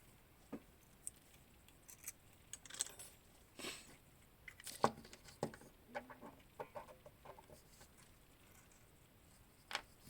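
Irregular light clicks and taps of small metal timing-chain tensioner parts being handled and fitted together, most of them in the middle of the stretch, with a last click near the end.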